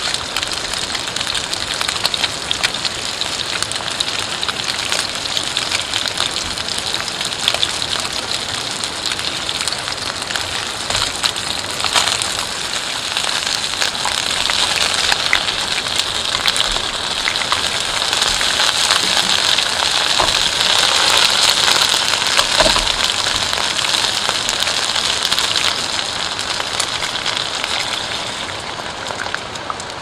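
Chicken wings sizzling and crackling in hot oil in a frying pan, a dense hiss with constant fine pops. It swells louder in the middle and eases off near the end.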